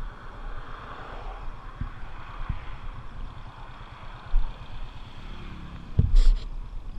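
A car passing on the road, its noise swelling over the first couple of seconds and then fading, over a low rumble of wind on the microphone. A sharp knock with a short clatter about six seconds in.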